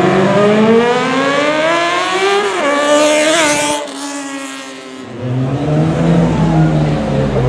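Motorcycle engine revving hard as the bike accelerates away, its pitch climbing for about three and a half seconds before dropping off. After a short lull, another engine runs at low, steady revs.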